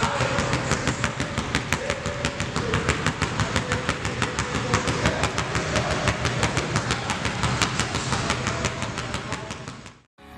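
A basketball dribbled rapidly on a hardwood gym floor, a steady beat of sharp bounces about six a second that fades out near the end.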